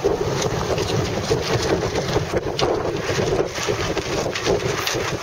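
Strong wind buffeting the microphone on a boat under sail: a steady rushing noise with a few brief clicks.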